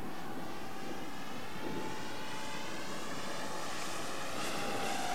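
Steady rushing aircraft noise with a thin whine that slowly falls in pitch.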